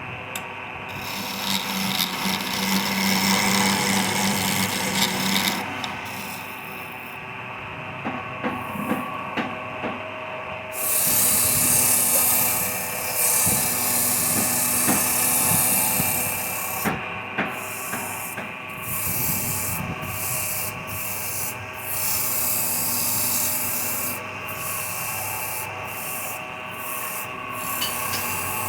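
Wood lathe running with a steady motor hum while a tool or abrasive is held against the spinning wood, giving a rasping, scraping hiss that comes and goes in spells, loudest from about eleven to sixteen seconds in.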